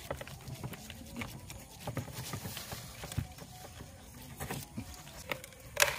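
Hands rubbing coarse rock salt over a grey mullet's scales: an irregular run of short scratchy, gritty strokes, with a sharp click near the end.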